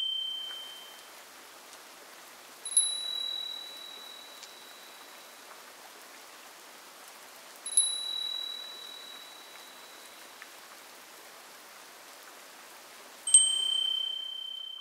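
A small chime or bell struck three times, about five seconds apart; each strike rings with a high, clear tone that fades over a second or two, over a faint steady hiss.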